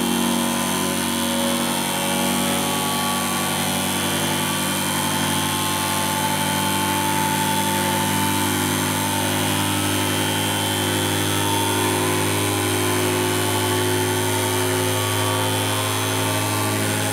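Home-built magnet motor-generator running steadily under load, a steady hum of several tones from its spinning flywheel and coils. A rasping buzz comes from the piezo discs wired in with the generator coils. The builders say the flywheel is slightly out of balance and its bearing is slowly wearing out.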